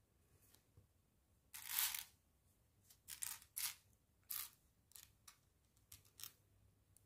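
Tiny plastic mini building bricks clicking and rattling as they are pressed together and picked from a loose pile. It is a string of short clicks and scrapes, the longest and loudest about one and a half seconds in.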